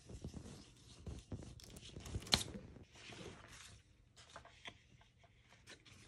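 Faint rubbing and scratching of a round blending brush working ink through a plastic stencil onto cardstock, mixed with paper and stencil handling. A sharp tap or click sounds a little over two seconds in.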